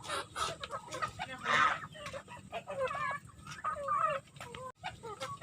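A flock of chickens clucking, many short calls overlapping one another, with a brief rustling burst about a second and a half in.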